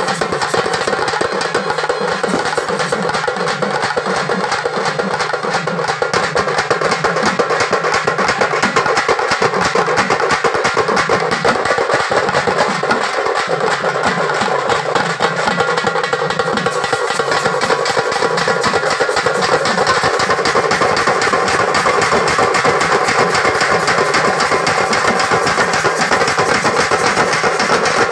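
Tamil street drum band playing live: several stick-beaten frame drums and a barrel drum keeping up a fast, dense rhythm, with a clarinet playing a melody over them.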